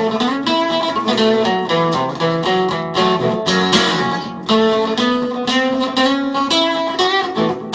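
Acoustic guitar playing an instrumental blues improvisation: a quick run of picked notes mixed with strums, with a bent note near the end.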